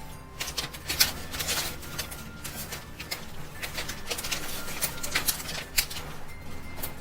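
A string of short, crisp rustles, taps and clicks from paper, stickers and tape being handled in diary decorating, the sharpest about a second in.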